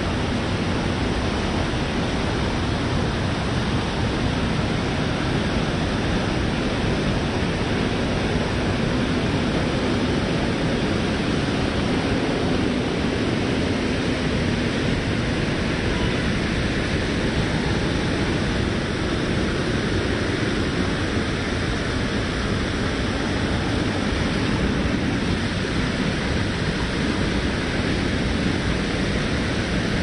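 Steady, even rush of a fast-flowing stream.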